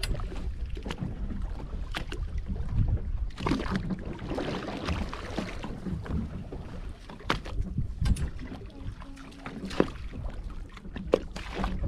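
Wind rumble on the microphone and water against the hull of a small boat at rest, with scattered clicks and knocks from the boat and fishing gear. A louder rush of noise comes about four seconds in.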